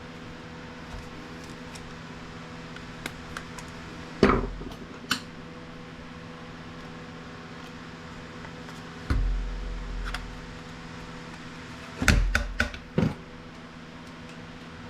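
Clatter and sharp knocks from a plastic USB docking-station case and hand tools being handled while it is taken apart. There is a loud knock about four seconds in, a low rumbling scrape about nine seconds in, and a quick cluster of knocks about twelve seconds in, all over a steady low hum.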